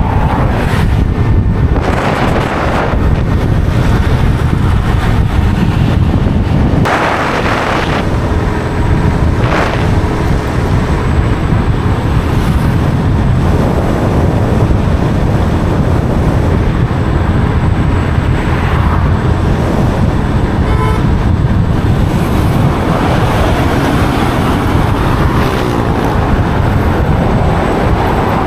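Steady rumble of a moving road vehicle, with wind buffeting the microphone in short gusts near the start.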